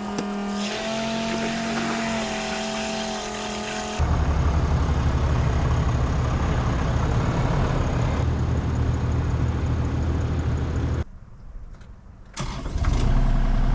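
Electric fuel transfer pump whining steadily while pumping diesel, its pitch shifting slightly at the start. About four seconds in it gives way to a loud, steady low engine rumble, which cuts out briefly near the end and comes back.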